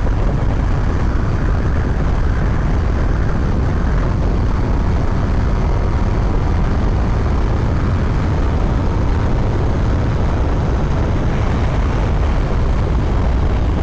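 Riding noise from a Yamaha MT-09 motorcycle held at a steady speed: wind rushing over the helmet-mounted microphone, with the engine running underneath.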